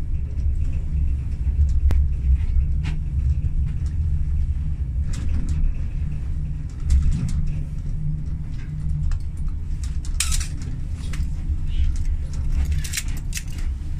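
Funicular car running along its inclined track, heard from inside the cabin: a steady low rumble with scattered light clicks and rattles, busiest in the last few seconds.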